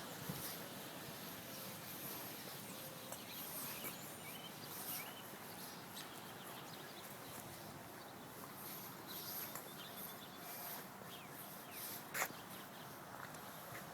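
Faint outdoor background with short high chirps and a few scattered clicks, with one sharper knock about twelve seconds in.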